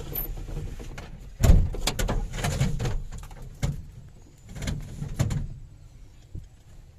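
A series of about five heavy knocks and thumps over a couple of seconds, each with a low rumble, over a low steady hum.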